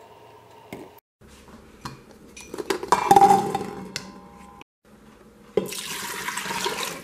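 Chestnuts clatter into a stainless steel pressure-cooker inner pot, then water is poured over them from a plastic bowl, splashing steadily from about halfway through.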